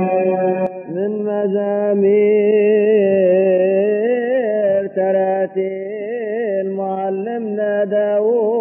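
A solo voice chanting a slow, melismatic Coptic liturgical hymn line. It holds long notes with small ornamental wavers and takes a brief breath about a second in.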